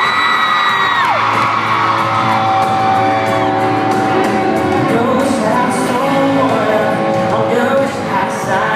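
Live band music played loud at a concert, heard from within the audience, with held notes and a high note sliding down about a second in; audience members whoop over it.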